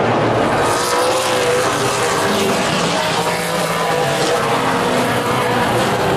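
A pack of Super Late Model stock cars racing at speed, their V8 engines running hard together in a loud, steady, overlapping drone, with engine notes shifting in pitch as cars go by.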